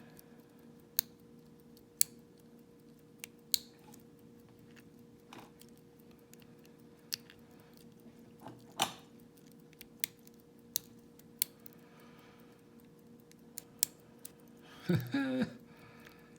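Lock pick and tension tool working the wafers of a tiny vintage Elgin wafer padlock: scattered, irregular sharp clicks as the wafers are stabbed and the core shifts, with a brief vocal murmur near the end.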